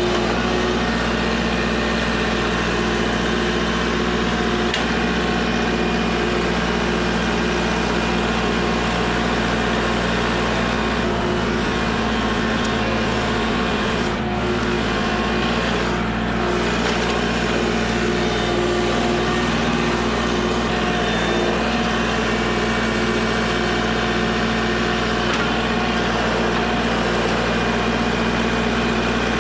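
Kubota L4701 tractor's four-cylinder diesel engine running steadily as the tractor drives and back-drags loose soil with its grapple. The engine note holds almost constant, with only slight changes in pitch.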